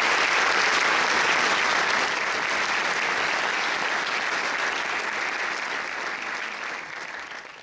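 Audience applauding, loud at first and gradually dying away toward the end.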